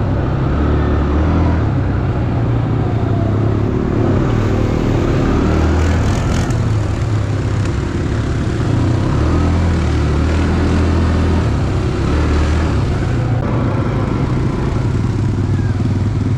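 ATV engine running, its note shifting up and down with the throttle.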